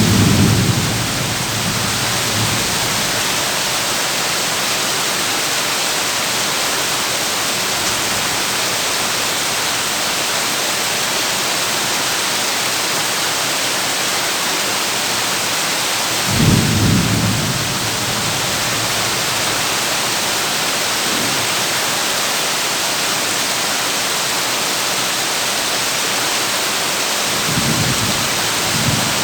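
Heavy rain drumming steadily on a tin roof. Low rumbles of thunder come in at the start, about halfway through and again near the end.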